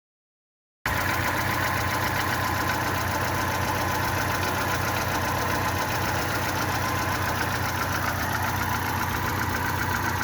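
Fiat Palio 1.2 L four-cylinder petrol engine idling steadily with a misfire, its sound cutting in abruptly about a second in.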